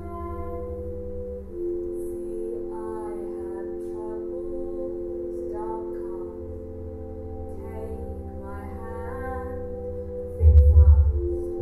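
Live music: a steady held chord of several sustained notes, with a woman singing short phrases over it. About ten seconds in, a loud, low, pulsing beat comes in.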